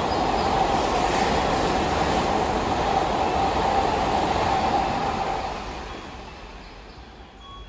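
Odakyu electric train running through the station at speed without stopping: a loud rush of wheels on rail with a steady hum. It fades away about five seconds in as the last car clears.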